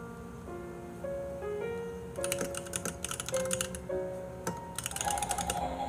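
Soft background music with a simple keyboard melody of held notes. Two bursts of rapid clicking come in over it, one in the middle and one near the end, and a warbling tone starts near the end.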